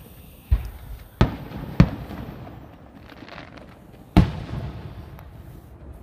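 Aerial fireworks shells bursting: four sharp booms, the first three close together in the first two seconds and the last about four seconds in, each trailing off in a rolling rumble.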